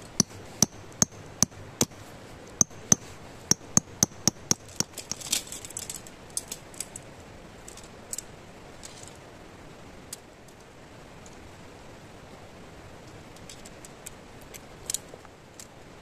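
Metal tent pole sections clicking and clinking together as the shock-corded poles are unfolded and snapped into place. About a dozen sharp, ringing clicks come quickly in the first five seconds, then a short rustle and a few scattered clicks, one louder near the end.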